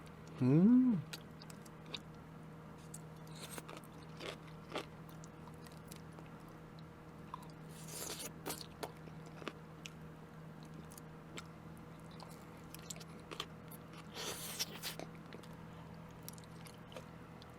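A person chewing and biting grilled vegetables close to the microphone, with scattered wet mouth clicks and a few longer crunches. A brief hummed "mm" with rising pitch comes just after the start.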